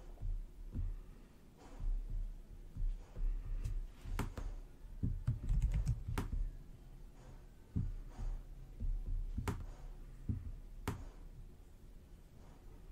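Computer keyboard keystrokes and mouse clicks: irregular taps, some with a soft thump, as copy-and-paste shortcuts are pressed to duplicate elements.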